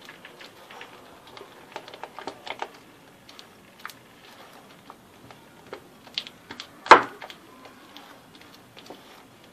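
Silicone spatula stirring a thick chocolate mixture in a glass bowl: irregular light clicks and scrapes against the glass, with one louder knock about seven seconds in.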